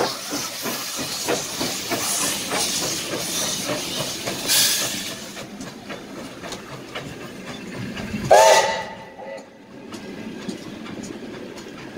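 Steam locomotive venting steam with a loud hiss over a quick rhythmic beat of exhaust as it pulls away. About eight seconds in comes a short whistle blast of about a second, the loudest sound, and after it the train rolls on more quietly.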